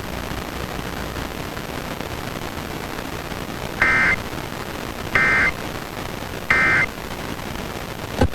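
Emergency Alert System end-of-message code: three short bursts of digital data tones, evenly spaced about 1.3 seconds apart, over a steady radio hiss. They close the statewide required monthly test. A click comes just at the end.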